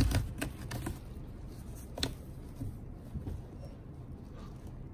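A thump, then scattered light clicks and rustling as a corgi puppy is stroked and shifts about on artificial turf.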